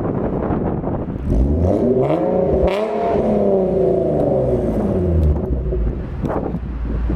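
Infiniti G37's 3.7-litre V6 through a Motordyne exhaust, blipped once from idle: the note climbs, peaks and falls back to idle over about four seconds. Wind buffets the microphone.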